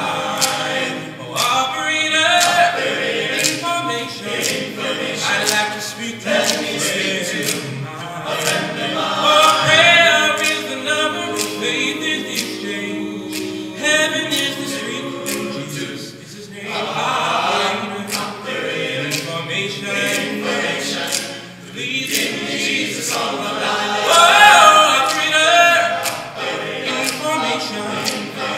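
Male a cappella group singing close multi-part harmony in a stone church, with sharp snaps recurring on the beat.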